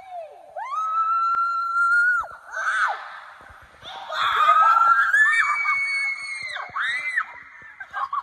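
Girls screaming and laughing while riding down an enclosed waterslide tube: several long, high-pitched screams in a row, with shorter yelps between them.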